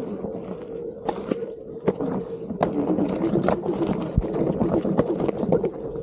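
Onewheel GT's hub motor whining steadily, its pitch shifting slightly with speed, while the board's tyre rolls over a rough dirt-and-rock trail with frequent knocks and clatter from bumps.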